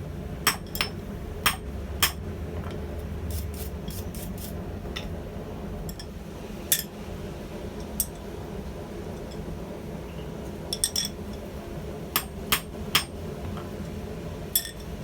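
Irregular metal-on-metal strikes and clinks at a blacksmith's anvil, about fifteen in all, each with a short ring, over a steady low hum. There is a quick cluster of strikes about three to four seconds in and another about eleven seconds in.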